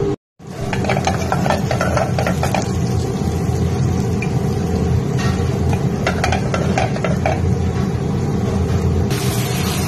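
Garlic and parsley sizzling gently in olive oil in a stainless pan, over a steady low kitchen rumble. Little clusters of crackles come about a second in and again around five to seven seconds.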